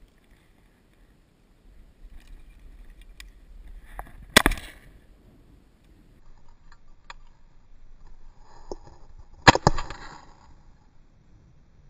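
Two shotgun shots about five seconds apart, each a sharp bang with a short ringing tail. A fainter click comes just before each shot.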